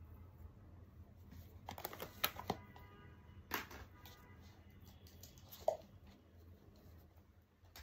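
Small clicks and knocks of makeup containers and brushes being handled on a table: a cluster about two seconds in, another a second and a half later, and a single tap later on, over a low steady room hum.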